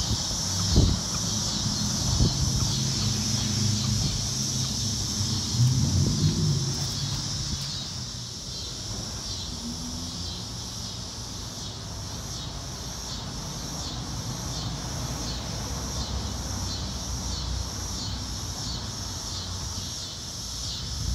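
Chickens clucking softly and low, mostly in the first seven seconds, with one short call about ten seconds in. Under them runs a steady high-pitched outdoor buzz.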